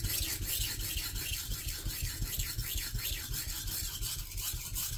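Santoku blade with an Aogami 1 steel core stroked quickly back and forth across a wet 400-grit Sigma Select II whetstone, a steady rhythmic hissing scrape of steel on stone. These are the last passes on the coarse stone, raising a burr along the edge.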